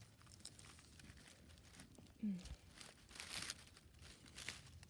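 Faint crackling rustle of dry leaf litter and bark being handled, with a short murmured "hm" about two seconds in.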